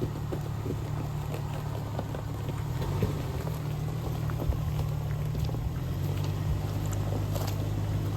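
Jeep TJ engine running steadily at low revs as it crawls up a trail hill, with scattered light clicks and crunches from the tyres on rock and gravel.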